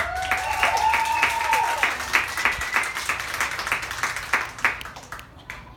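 A small crowd clapping, with a few high whoops and cheers in the first few seconds; the clapping thins out and fades near the end.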